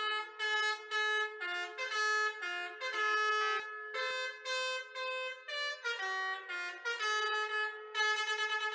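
Basuri telolet multi-tone bus horn playing a tune: chords of several horn tones sounding together, changing pitch note by note, with a quick run of short repeated notes near the end.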